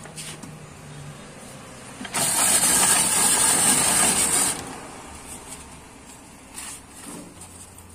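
Hand-cranked ice shaving machine shaving a block of ice: a loud, harsh scraping for about two and a half seconds, starting about two seconds in, then stopping.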